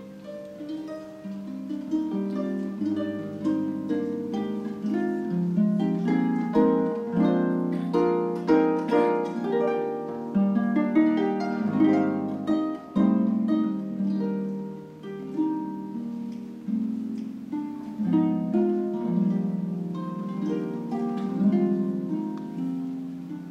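Concert pedal harp played solo: a flowing stream of plucked notes and chords, each ringing on under the next.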